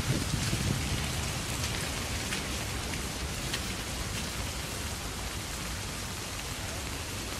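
Steady rain falling in a dense, even hiss, with a low rumble in the first second.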